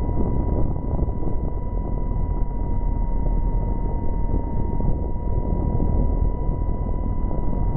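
Electric motor and propeller of a Great Planes Electrifly Cub RC model plane in flight, heard from the camera on the plane's nose. It gives a steady high whine at near-constant pitch over a heavy rushing rumble of airflow.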